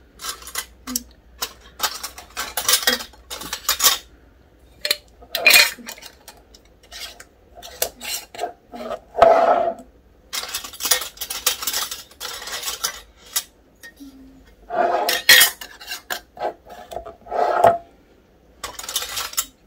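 Glass half-pint canning jars with metal lids and screw bands being handled and screwed tight: repeated clinks, knocks and scrapes of metal on glass, in uneven clusters.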